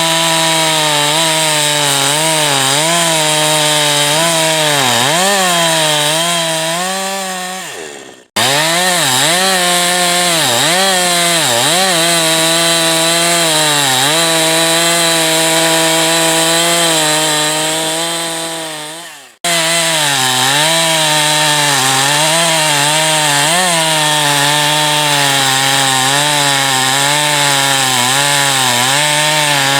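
Two-stroke chainsaw cutting firewood at high revs, its pitch repeatedly dipping as the chain bites and recovering. The sound fades away twice and comes back suddenly, about 8 and 19 seconds in.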